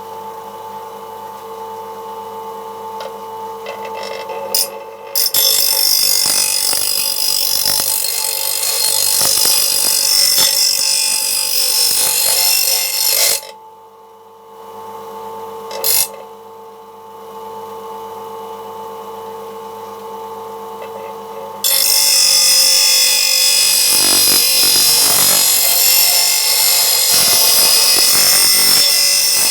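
Mac Allister MBGP150B bench grinder running with a steady motor hum while a lawnmower blade is sharpened on its grinding wheel. A loud grinding hiss starts about five seconds in and lasts around eight seconds. It is followed by a quieter stretch of motor hum alone, then loud grinding again over the last eight seconds.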